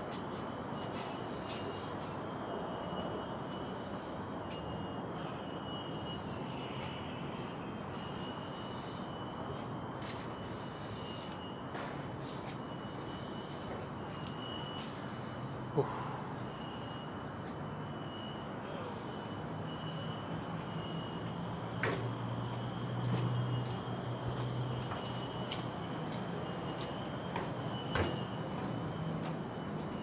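Chorus of forest insects: a steady high shrill with a pulsing, even higher tone above it, and a few faint knocks.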